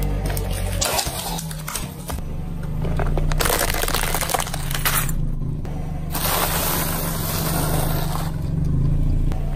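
Car engine running with a low steady hum as the front tyre rolls slowly over a toy on asphalt, crushing it, with stretches of crackling and scraping noise from the tyre and the crushed material.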